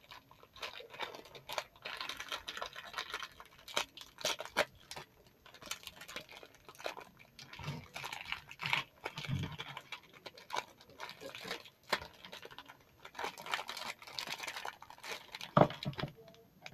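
Slime with small foam pieces in it being kneaded and squished by hand: irregular crackling, clicking and squishing.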